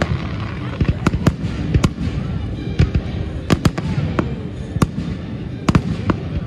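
Fireworks display: aerial shells bursting in quick, irregular succession. Sharp bangs, sometimes several within a second, ride over a continuous low rumble.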